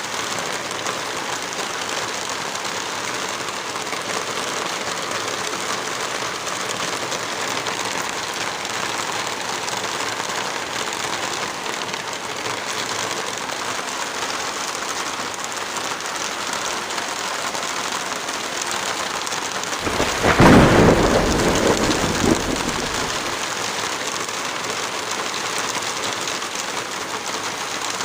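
Heavy rain falling steadily, with a single thunderclap about twenty seconds in that rumbles low for a few seconds and fades.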